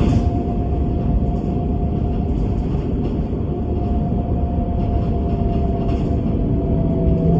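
Bus running at a steady speed: a continuous low rumble with a constant whine, light rattles, and a brief clatter right at the start.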